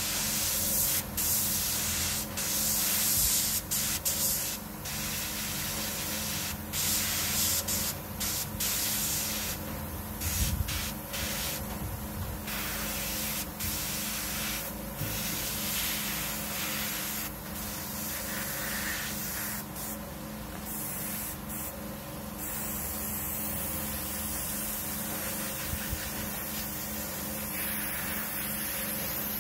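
Airbrush spraying paint in a hiss that keeps stopping and starting in short spurts as the trigger is let off and pressed again, weaker in the last third. A steady low hum runs underneath.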